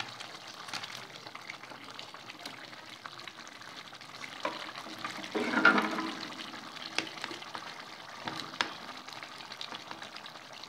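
Tomato-onion masala gravy, its oil separated, bubbling and sizzling in a steel karahi, with a few sharp clicks of plate and spatula against the pan. About halfway through comes a louder splash and sizzle as the barbecued chicken pieces tumble into the hot gravy.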